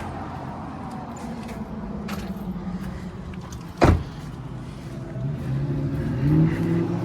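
Car running, steady engine and road noise, with a single loud thump about four seconds in.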